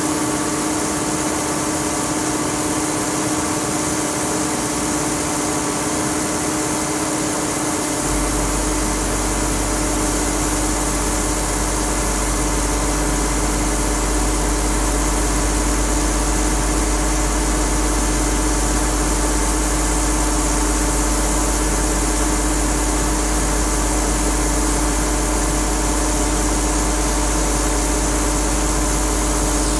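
Loading conveyor machinery running steadily as gravel pours off the chute into a barge's hold, with a constant mechanical drone and hiss. A deep low hum starts suddenly about eight seconds in and holds steady.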